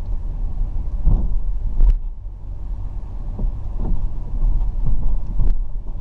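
Car driving through floodwater: a steady low rumble broken by irregular thumps.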